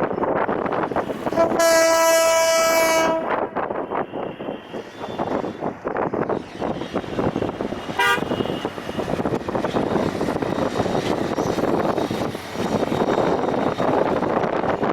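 Diesel-hauled passenger train rolling slowly past, its wheels and cars rattling and clicking over the track. A single steady horn blast sounds about a second and a half in, lasting under two seconds, and a very short toot follows near the middle.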